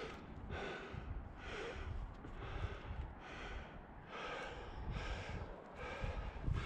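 A climber breathing hard with exertion: quick, even breaths in and out, about two a second.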